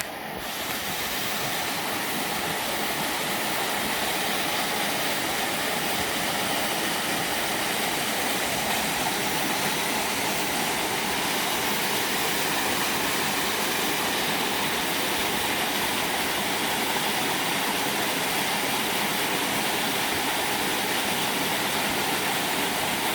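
Mountain waterfall pouring in a steady, unbroken rush of water.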